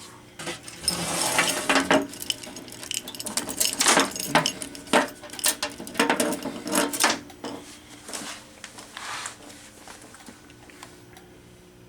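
Hands working a fire alarm control panel: a busy run of clicks, rattles and rustling that thins out over the last few seconds.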